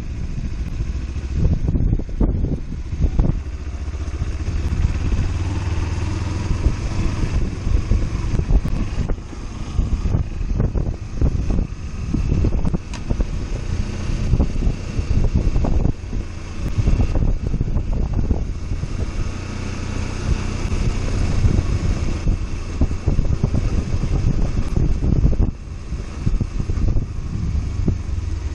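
Kawasaki Versys-X 300's parallel-twin engine running as the motorcycle is ridden over a rough gravel and dirt track, with frequent short knocks and rattles from the bumps.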